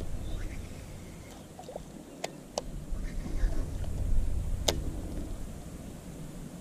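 Rod and baitcasting reel being handled while fishing from a small boat: four sharp clicks, the loudest near the end, over a low steady rumble.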